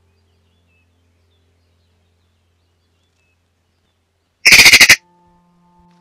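Eurasian magpie giving one loud, harsh rattling chatter lasting about half a second, a little past halfway through. The rest is near quiet, with faint high chirps from small birds.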